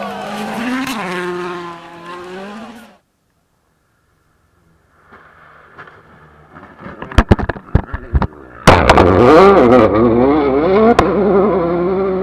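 A World Rally Car's engine at high revs passes on a gravel stage, its pitch rising and falling, and cuts off suddenly about three seconds in. After a short near-silence comes a quick run of sharp knocks and thuds as a rally car crashes through hay bales. Then a rally engine runs very close and loud, its pitch wavering up and down as it is revved.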